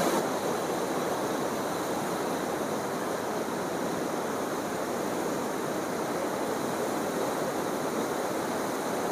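The Ganga in flood, heavy with silt, rushing at high pressure below a barrage with its gates open: a steady, even rush of fast, churning water.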